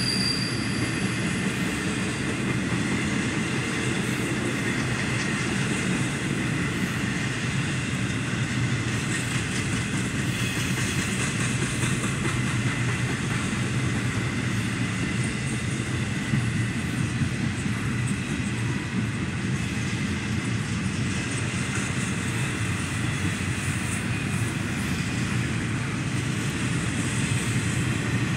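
Double-stack intermodal well cars of a CSX freight train rolling past at steady speed: a continuous rumble and clatter of steel wheels on rail.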